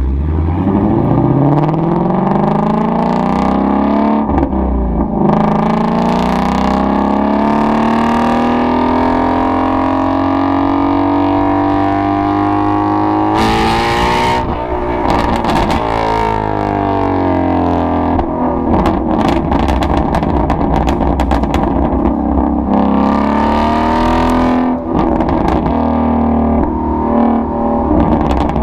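Shelby GT350's 5.2-litre flat-plane-crank V8 pulling at wide open throttle, its pitch climbing through one gear, dropping briefly at a shift about four seconds in, then climbing again for a long pull. Around the middle the throttle comes off with a sudden burst, and the engine note falls away with crackling from the exhaust before it picks up again near the end.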